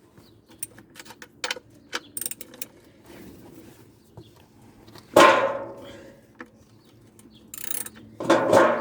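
Light metallic clicking and clinking of hand tools working at the sump drain plug, then two louder pitched sounds about five and eight seconds in.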